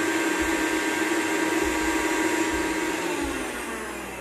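Electric mixer grinder running at full speed, grinding broken Oreo biscuits to powder in its steel jar. About three seconds in it is switched off and its motor winds down, the pitch falling as it slows.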